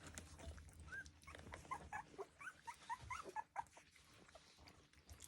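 Three-week-old sheepadoodle puppies giving faint, high-pitched squeaks and whimpers: many short calls that bend up or down, bunched in the first few seconds and then thinning out.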